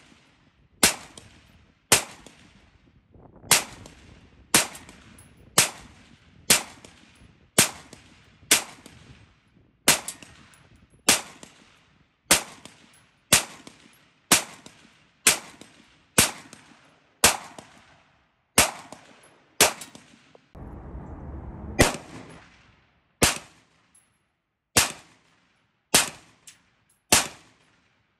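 San Tan Tactical STT-15, an AR-15-style rifle chambered in .223 Wylde, fired semi-automatically at a steady pace of roughly one shot a second, each sharp report followed by a short ringing tail.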